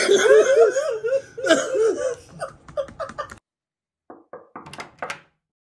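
Hearty laughter, a rapid run of repeated 'ha-ha' pulses, that cuts off abruptly about three and a half seconds in. A few short, separate bursts of sound follow near the end.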